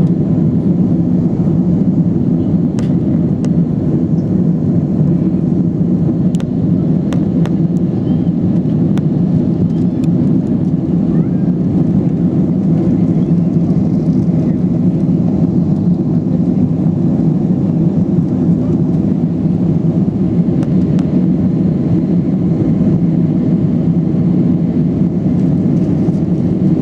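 Airliner engine and airflow noise heard from inside the cabin: a loud, steady low drone that does not change, typical of a jet climbing after takeoff.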